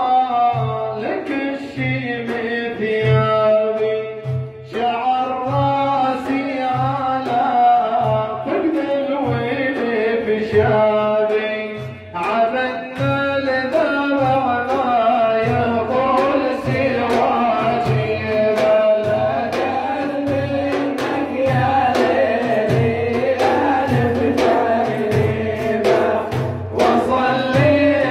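Male Islamic devotional praise singing (madih) led by a solo voice, with large frame drums beating a steady rhythm of low thumps and sharp slaps.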